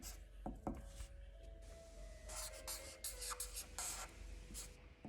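Faint strokes of a pen or marker being drawn across paper: a series of short, scratchy lines.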